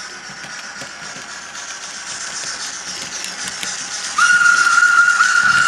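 Sound-equipped model steam locomotive's onboard speaker playing steam hiss that grows louder as it approaches, then a steam whistle about four seconds in, one long steady whistle that becomes the loudest sound.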